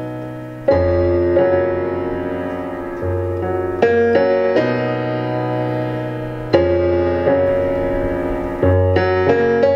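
Electronic keyboard playing a piano sound: slow, held chords over bass notes, with a new chord struck every two to three seconds and a few higher melody notes in between.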